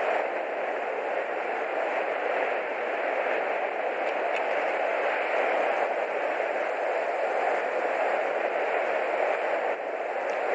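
Steady rain falling, an even hiss that keeps up throughout.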